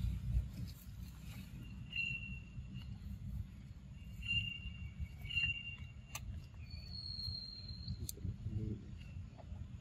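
Outdoor forest ambience: a steady low rumble with several short, high chirps, one higher note held for about a second past the middle, and a few sharp clicks.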